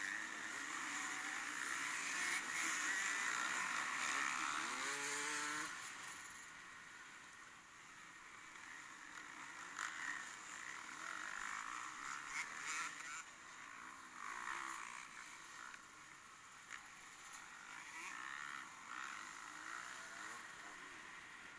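Racing engine noise from an endurance race, with a rising rev about four to five seconds in. The sound is louder for the first six seconds, then quieter.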